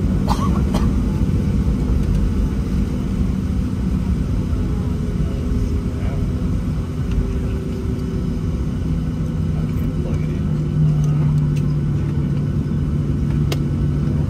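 Steady low cabin rumble inside a Boeing 737-700 taxiing after landing, its CFM56-7B engines at idle. A steady hum comes in about nine seconds in, with a few faint clicks.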